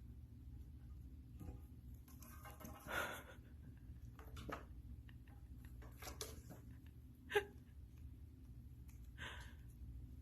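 A pet's breathy huffs or sniffs, several short separate bursts over a steady low hum, with one brief sharp sound a little past the middle.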